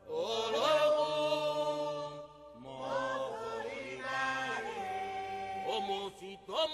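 A voice chanting a Lucumí (Yoruba) song to the orisha Olokun, in long held notes that slide up into each phrase, with a short breath break about two and a half seconds in.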